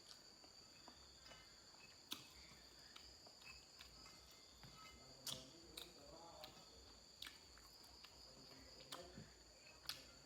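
Faint sounds of a person eating papaya-leaf urap: quiet chewing with several sharp clicks a second or two apart. Behind it runs a steady, high-pitched chirring of crickets.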